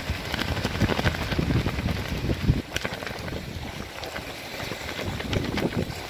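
Wind buffeting the microphone in uneven gusts, over wind-driven waves splashing on choppy open water.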